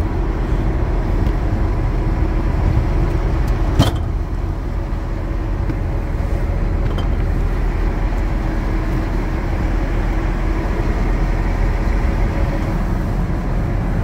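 Vehicle engine idling steadily, a low rumble with a faint hum. A single sharp knock comes about four seconds in.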